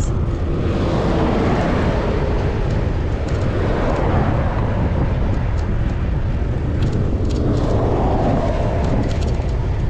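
Wind buffeting the action camera's microphone while riding a bicycle along a highway, with cars and trucks passing and swelling up and fading several times.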